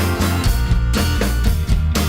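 Background music: an upbeat rock-style track with a steady drum beat, bass and guitar.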